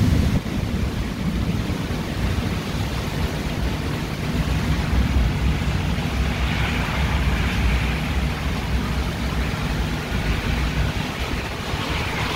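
Steady rain and gusting wind in a thunderstorm, with wind noise on the microphone making a low rumble.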